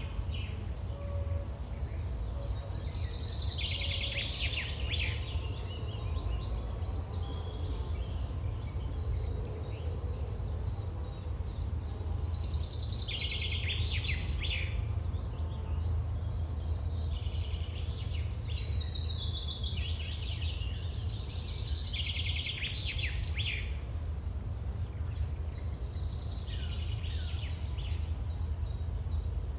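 Outdoor nature ambience: several birds chirping and trilling in short repeated phrases every few seconds, over a steady low rumble.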